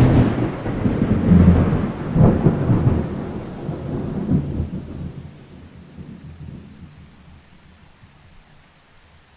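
A sudden thunderclap followed by rolling thunder, with several swells in the first few seconds, dying away slowly to faint.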